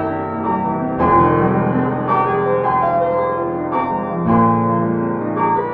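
Piano music: a gentle melody of sustained notes, with new chords struck about a second in and again about four seconds in.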